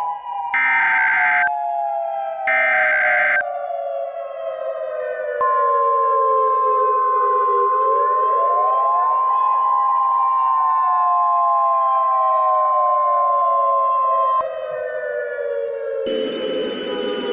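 Mock Emergency Alert System broadcast. It opens with two short buzzing data bursts of an EAS header over a wailing siren tone. The siren falls slowly, rises again about eight seconds in, and falls once more. A steady weather-radio style alert tone is held over the siren from about five to fourteen seconds in, and near the end a hissing noise with a steady high whistle comes in.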